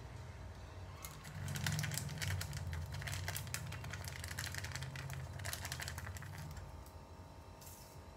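Spice containers being worked over a pan of pasta: two runs of rapid clicking and rattling, about a second in and again past the middle, over a low steady hum.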